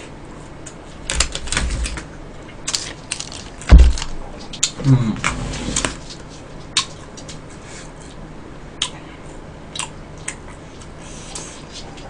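Eating sounds: chopsticks clicking and tapping against a bowl and dishes, with mouth sounds of chewing. A dull knock comes about four seconds in, and a brief hum-like sound follows just after.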